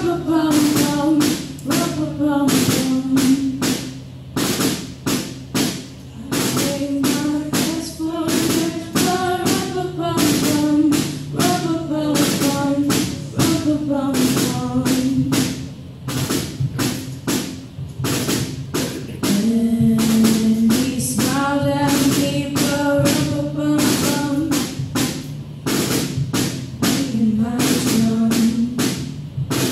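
Gospel worship music: a tambourine hits a steady beat under singing that holds long notes.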